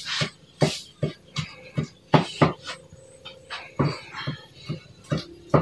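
Cleaver chopping red chillies on a wooden cutting board: sharp knocks of the blade into the wood, about two a second, with a short pause about halfway.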